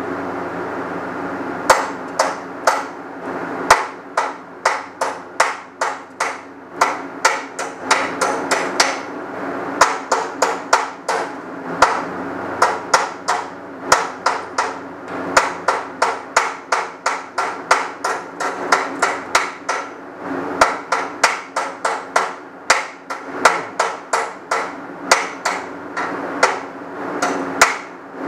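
Chipping hammer striking a weld bead on scrap steel to knock off the slag: a long run of sharp metallic taps, about two or three a second, starting about two seconds in.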